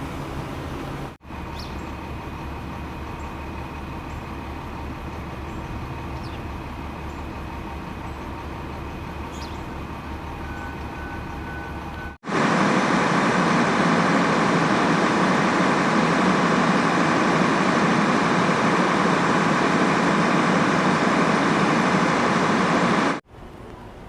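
Steady machine noise in shots cut together: first a low, even hum with several steady tones, then, about twelve seconds in, a much louder even rushing noise that cuts off suddenly about a second before the end.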